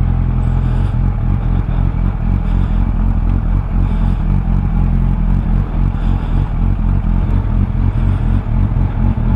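Suzuki Bandit 600's inline-four engine running at a steady speed while the motorcycle is ridden, with a constant rush of wind and road noise.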